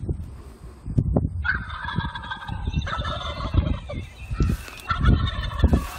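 Wild turkey toms gobbling, a rattling call starting about a second and a half in and repeating twice more, over low buffeting noise.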